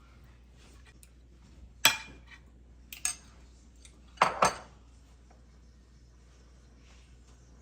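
Kitchenware and cutlery clinking and knocking against each other: a sharp clatter about two seconds in, a lighter double click a second later, then a loud double knock just past the middle.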